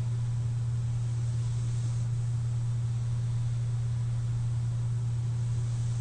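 CPAP machine running: a steady low hum under a constant hiss of air, with no snore heard.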